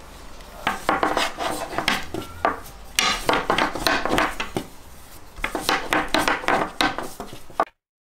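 A long, thin wooden rolling pin rolling and knocking over a floured countertop as a ball of pastry dough is rolled out, in a quick run of short strokes with rubbing between. It stops suddenly just before the end.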